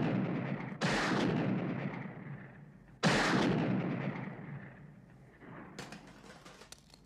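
Two revolver shots, about a second in and about three seconds in, each loud with a long echoing tail that dies away over a couple of seconds; the tail of an earlier shot is still fading at the start.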